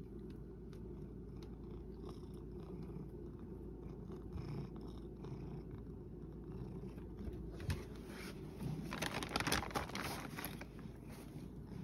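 A pet cat purring steadily, a low rumble throughout. A single knock about eight seconds in, then a louder burst of scuffing and rustling about nine to ten seconds in.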